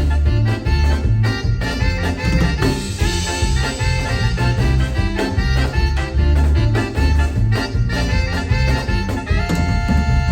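A live band playing an instrumental passage between sung lines, with a pulsing bass line, a steady drum beat and held melody notes near the end, during a sound check.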